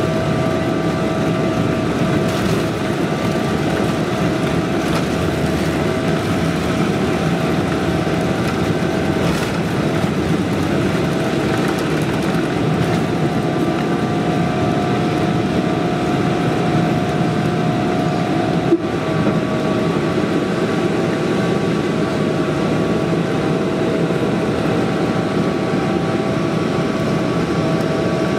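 Boeing 777-300ER's GE90-115B turbofan engines at takeoff thrust, heard inside the cabin over the wing during lift-off and initial climb: a steady, loud roar with a constant hum of fan tones over it. A single short knock sounds about two-thirds of the way through.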